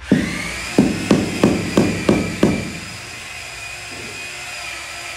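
A power tool running with a steady high whine that starts suddenly. Over it, seven dull knocks come about three a second in the first two and a half seconds, then stop while the whine goes on.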